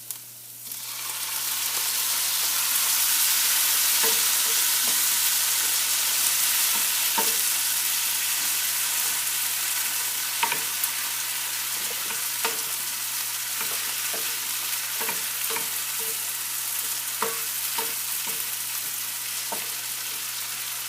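Onions and chopped tomatoes sizzling in olive oil in a frying pan, the sizzle swelling up about a second in, with a utensil clicking against the pan now and then as they are stirred.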